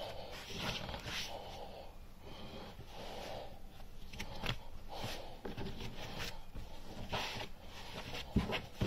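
Hands rolling and pressing bread dough into a loaf on a floured board: soft rubbing and swishing, with a couple of dull thumps near the end.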